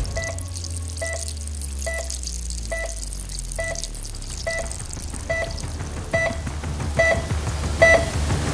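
Patient heart monitor beeping at a steady pulse-like pace, about one short two-pitch beep every second, getting louder toward the end, over a low steady drone.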